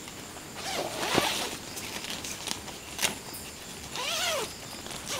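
Tent zipper being pulled in rasping strokes, one about a second in and another about four seconds in that rises and falls in pitch, with a sharp click in between.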